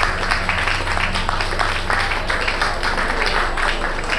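Audience applauding: many people clapping at once, steadily, with no break.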